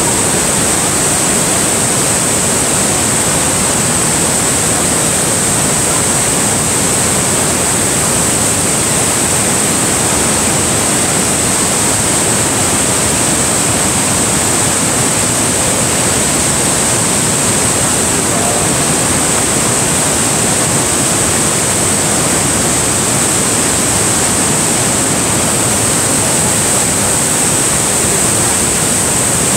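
Niagara Falls heard close up: a steady, loud rush of falling and churning water.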